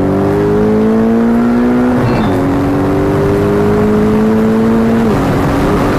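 Porsche 718 Boxster GTS engine pulling under acceleration, its pitch rising steadily, dropping once about two seconds in as a gear changes, then rising again before it falls to a lower, steady note about five seconds in.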